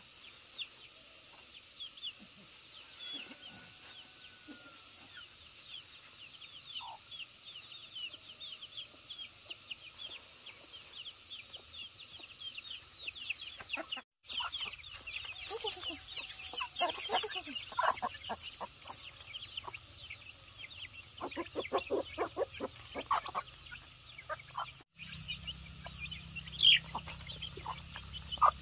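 Chickens clucking, with many short high chirps and a quick run of calls about two-thirds of the way in, over a steady high drone.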